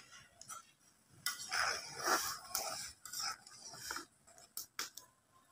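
A spoon stirring in a pot of boiling broth and clinking against it, scraping for a second or two, then a few sharp clicks near the end.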